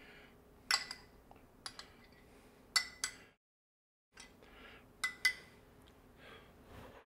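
Metal spoon clinking against a ceramic soup bowl: several sharp clinks, each with a short ring. The sound cuts to dead silence for about a second partway through.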